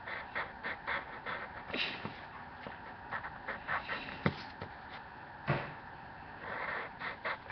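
Drawing tool scratching across sketch paper in quick, uneven strokes, with one longer stroke a little before the end.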